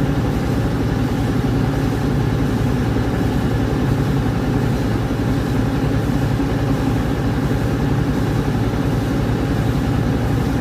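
Rice milling machine running steadily: a constant mechanical drone with a fast, even low pulse.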